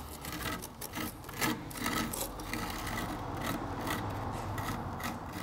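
Sgraffito being scratched by hand: a tool scraping away the top coat of plaster to lay bare a red coloured layer beneath, in short, irregular, repeated scraping strokes.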